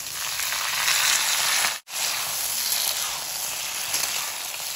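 Chopped tomatoes sizzling loudly as they are tipped into hot mustard oil in a kadhai. The sizzle breaks off for a split second about two seconds in, then carries on steadily.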